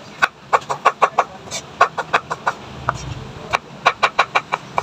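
Kitchen knife slicing a tomato on a wooden cutting board: quick sharp taps of the blade on the board, about four or five a second, in three short runs with brief pauses between them.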